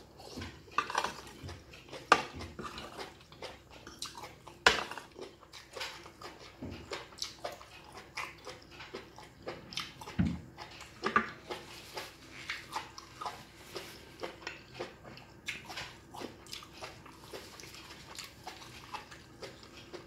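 A person eating a glass-noodle seafood dish up close: wet chewing and slurping, with a spoon and fork clicking against the plate in many short, irregular sounds.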